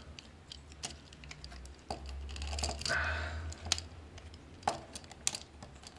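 Plastic parts of a Takara Masterpiece Tracks transforming-robot figure clicking and creaking as they are handled and unfolded, with the door panels pried apart. The clicks are small and irregular, with a few sharper snaps near the end.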